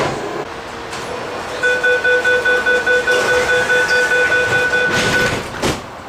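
Door-closing warning of a Hong Kong MTR train: a high electronic beep repeating rapidly, about four times a second, for nearly four seconds. The doors then shut with a knock near the end. A brief knock at the very start comes from the doors of the previous train.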